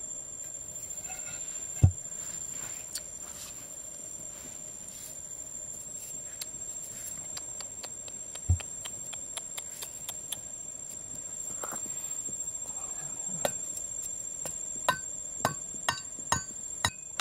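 Work at a stone slab and wooden stake over a dug pit: a dull thump about two seconds in and another about halfway, with light clicks and taps between. In the last couple of seconds a run of sharp, ringing knocks starts, about two a second, as something is struck. A steady high whine runs underneath throughout.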